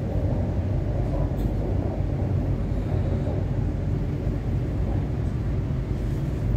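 Steady low rumble and hiss of an MTR Kwun Tong Line C-Train heard from inside the car.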